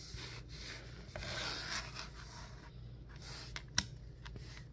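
Handling noise: fingers rubbing over a clay-bead friendship bracelet and the phone, with a few light clicks from its plastic letter beads near the end.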